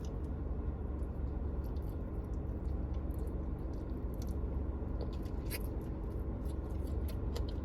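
Faint chewing and small wet clicks of someone eating a sauce-dipped fried chicken wing, over a steady low hum in a car cabin.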